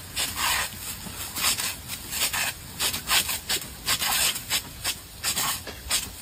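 Sprinkler jet spraying in repeated rasping bursts of hiss, a few a second, as the water beats against the dogs and the gravel.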